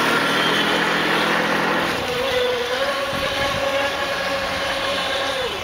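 Engine of a Mystic M radio-controlled model powerboat running at speed across the water: a steady high whine that climbs a little in pitch about two and a half seconds in, then drops away near the end.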